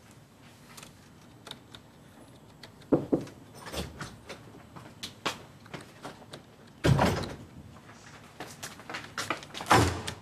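A door and things set down on a desk in a small office, heard as a series of knocks and clatters with light clicks between them. A heavier knock comes about three seconds in, the loudest thud about seven seconds in, and another near the end.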